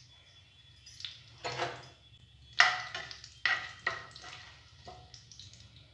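A spoon stirring in a pan of oil and whole spices, scraping and knocking against the pan in about six short strokes, the loudest about two and a half seconds in.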